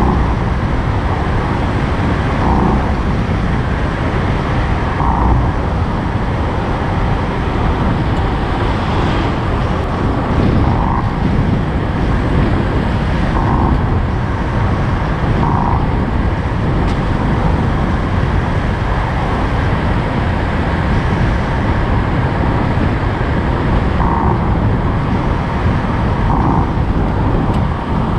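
Steady road noise from a moving vehicle, mostly a low rumble, with a few short higher blips coming and going.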